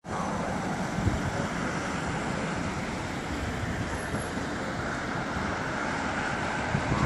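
Steady road traffic noise: cars passing on the street beside the tram tracks.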